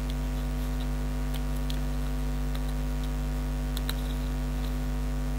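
Steady electrical mains hum, with a few faint, sharp clicks of die-cut card layers being pressed out of a topper sheet by hand.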